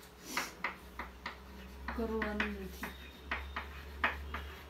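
Chalk tapping and scraping on a chalkboard as handwriting is written, a quick run of short taps, about three a second.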